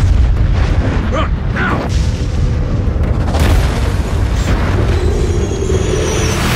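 Movie sound effect of an atomic bomb blast: a loud, deep boom that hits suddenly, then carries on as a long low rumble with a rushing noise over it.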